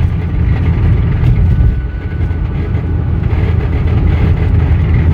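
A 1996 Toyota Corolla's four-cylinder engine running steadily as the car is driven, making a crazy noise after running out of oil. The owner is unsure whether it is rod knock from a spun rod bearing.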